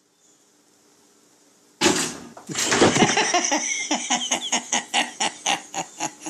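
Pop-up toaster springing up with a sudden loud clack, followed by a run of quick repeated bursts, about four a second, that cut off abruptly.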